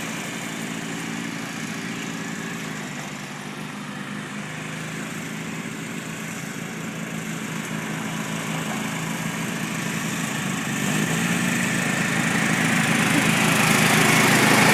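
Lawn mower engine running steadily, dipping a little early on, then growing louder through the second half.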